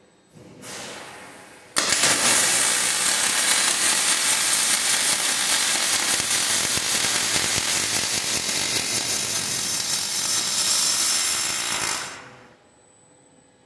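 Robotic MIG welding arc from a KUKA robot's torch on a steel truss: a short hiss, then about ten seconds of loud, steady crackling as the weld is laid, cutting off abruptly near the end.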